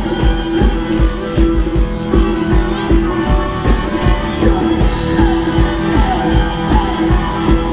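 Live Thai ramwong band music with a steady drum beat of about two to three strokes a second, and a voice singing over it.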